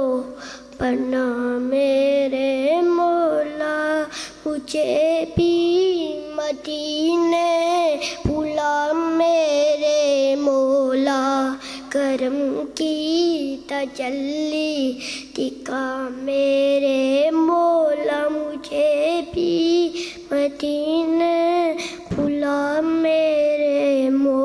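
A young boy sings an Urdu naat (devotional praise poem) solo, with no instruments. His high voice wavers through long, ornamented notes, and he breaks off for a short breath every few seconds.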